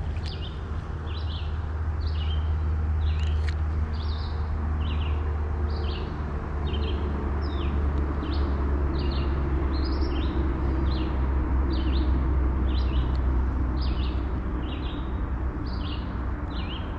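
A small bird calling over and over with short, high chirps, about one and a half a second, over a steady low rumble.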